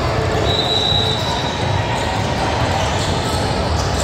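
Basketballs bouncing on a gym court over steady gym noise and voices, with a thin high tone about half a second in lasting just over a second.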